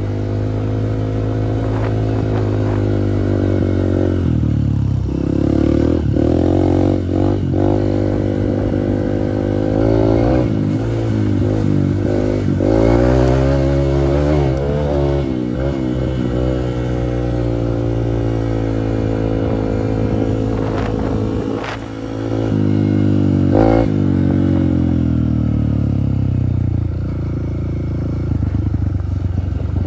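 Dirt bike engine running while the bike is ridden over rough ground. The revs rise and fall with the throttle and gear changes, easing off briefly around two-thirds of the way through before picking up again.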